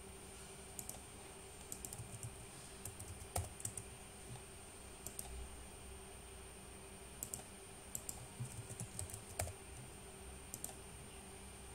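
Computer keyboard typing: short, scattered runs of keystrokes with pauses between them.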